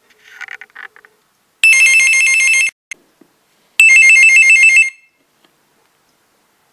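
Corded desk telephone's electronic ringer trilling: two rings of about a second each, a second apart, each a rapid warble between two high tones.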